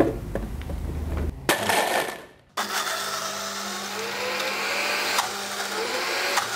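Commercial countertop blender crushing ice into a frappe slush. There is a click as the lid goes on, then the motor runs at high speed with a steady hum, and its pitch slowly rises and falls as the ice breaks down. The sound drops out briefly about two seconds in.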